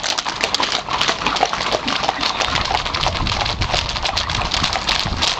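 Hooves of several horses and ponies trotting on a road: a dense, overlapping clatter of hoofbeats.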